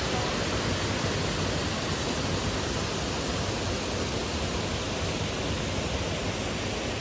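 Steady rush of flowing water, an even unbroken noise.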